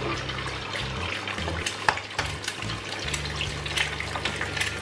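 Egg frying in hot oil in a non-stick frying pan: a steady sizzle dotted with small pops and crackles of spitting oil. A sharp click about two seconds in.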